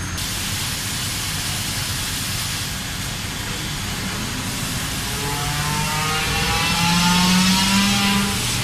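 WFL M60 MillTurn machining a crankshaft: a steady hiss of machine noise, with a motor whine that rises in pitch over the last few seconds and gets loudest near the end.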